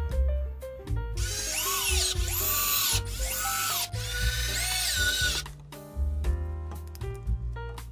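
Power drill-driver whirring in several short runs, each speeding up and slowing down, driving screws into a plywood panel from about a second in until about halfway. Background music plays throughout.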